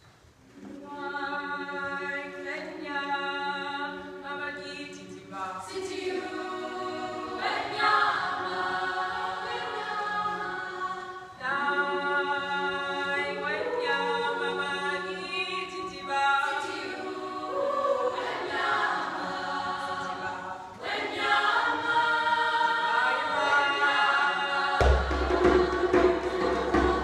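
Unaccompanied all-female a cappella choir singing in close harmony, entering about half a second in with sustained chords that change every few seconds. Low thuds join near the end.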